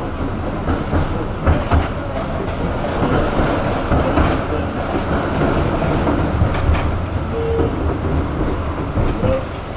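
Tram heard from inside the passenger cabin while running along the line: a steady rumble of steel wheels on rails, with scattered knocks and clatters and a brief squeal about seven and a half seconds in.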